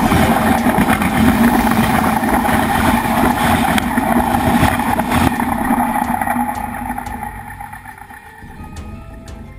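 Steam train headed by JA-class locomotive 1240 rolling right over the track at close range, its steel wheels clattering on the rails under a steady ringing hum. The rumble fades away from about six seconds in as the train passes, and a few soft music notes come in near the end.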